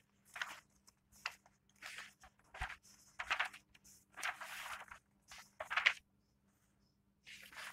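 A run of short, irregular rustling and scraping handling noises close to the microphone, about a dozen in a row, with a brief pause about six seconds in.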